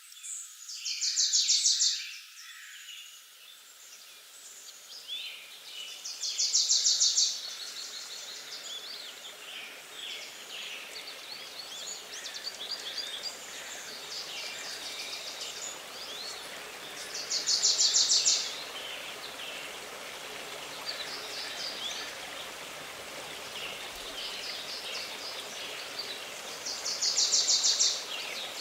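Forest birdsong: one bird repeats a short, fast, high trill four times, loudest of all, with other birds chirping softly between its phrases over a steady background hiss.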